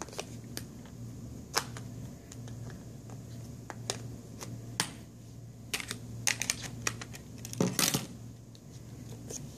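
Small plastic clicks and taps of a smartphone's parts being handled and pressed together: irregular sharp clicks, a cluster of them between about six and eight seconds in, over a faint steady low hum.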